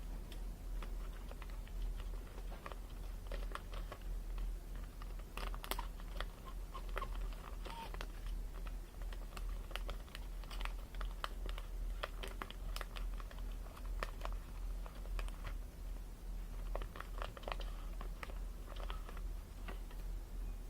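Irregular light clicks and taps, in clusters, over a steady low hum.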